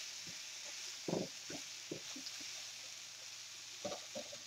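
Flour-dredged beef stew meat searing in hot oil in a frying pan: a faint, steady sizzling hiss, with a few light knocks.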